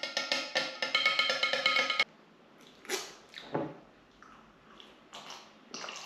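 Metal spoon stirring tea in a glass pitcher, clinking quickly against the glass with a ringing tone, about seven clinks a second, then stopping suddenly about two seconds in. After that, a few soft sips and breaths as the tea is drunk from the pitcher.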